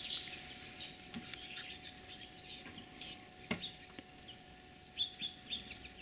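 Small finches chirping: short high calls scattered throughout, with a brief flurry of calls near the end. A single sharp tick stands out about three and a half seconds in.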